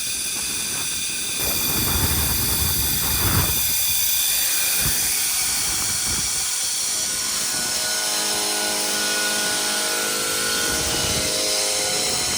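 Vacuum truck's blower running steadily, a loud hiss with a high whine over it, swelling about a second and a half in, while it sucks up spilled corn through a hose. A cluster of steadier, lower whining tones joins in over the second half.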